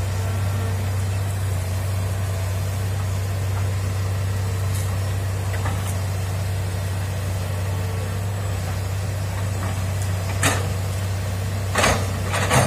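Hitachi crawler excavator's diesel engine running steadily with a low drone as the machine works. A few sharp knocks sound near the end.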